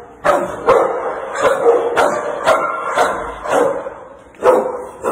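Dogs in shelter kennels barking repeatedly: about eight sharp barks, roughly one every half second, with a brief lull shortly before the last one.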